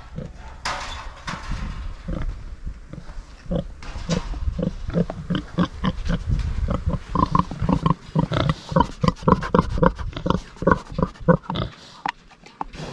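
Domestic pigs grunting in a fast run of short grunts, about three a second, which grows busier a few seconds in and stops shortly before the end.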